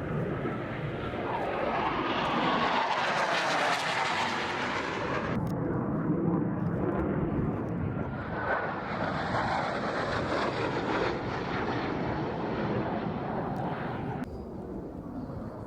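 Jet aircraft flying low overhead: loud rushing jet noise that swells and sweeps down in pitch as it passes, heard in two passes, each cut off abruptly, the first about five seconds in and the second near the end.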